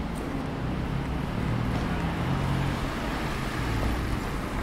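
Street traffic: a motor vehicle's engine hums low and swells about a second and a half in, over a steady wash of road noise.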